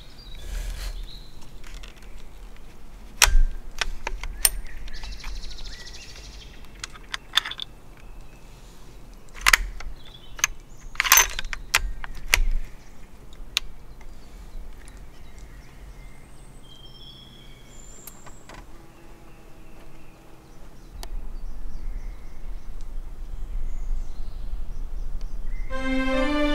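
Outdoor ambience: a series of sharp clicks and knocks, the loudest about three seconds in, over a low rumble, with a few short bird chirps later on.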